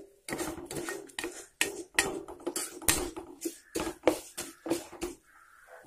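Steel spoon stirring and scraping urad dal and sesame seeds frying in oil in a nonstick pan: a quick, uneven run of clicks and scrapes, about three a second, easing off near the end.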